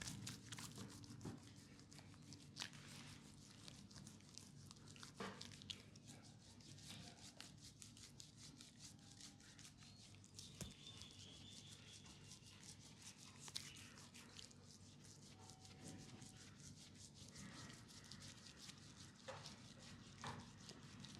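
Faint rubbing and light tapping of hands working on a leg during a massage, with many small scattered clicks over a low steady hum.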